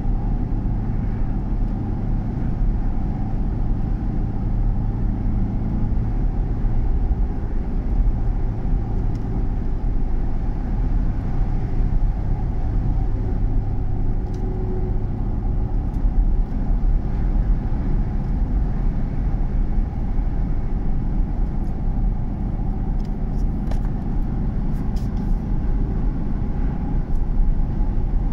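Vehicle cabin noise while cruising on a paved road: a steady mix of engine hum and tyre and wind noise heard through the windshield, with a few faint ticks in the second half.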